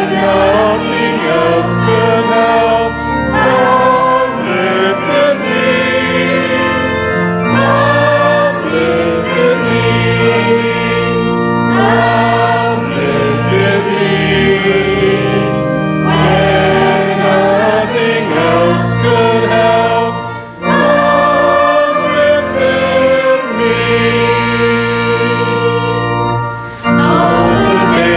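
Church choir singing a hymn over steady held low notes of accompaniment, pausing briefly between lines about 20 and 27 seconds in.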